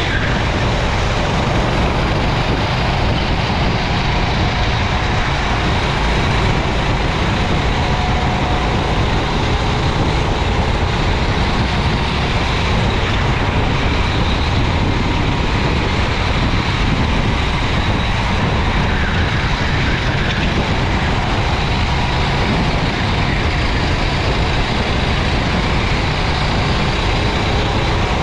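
Racing kart's engine running continuously at racing speed under a dense, steady rumble, heard from an onboard camera.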